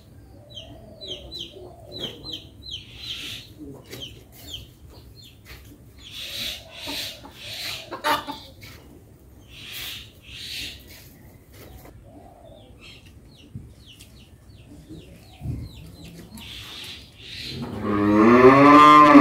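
Chickens clucking with many short, high chirps; near the end a cow gives one long, loud moo whose pitch wavers.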